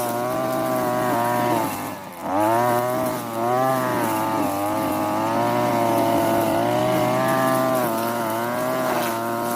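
Europa Hilt TB43 two-stroke brush cutter engine running at high speed, its pitch wavering up and down as it cuts. About two seconds in it drops sharply for a moment, then picks up again.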